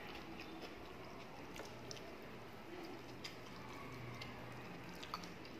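Faint eating sounds: fingers squishing and mixing rice with fish curry on a plate, then chewing with soft mouth clicks, a few small sharp clicks spaced through.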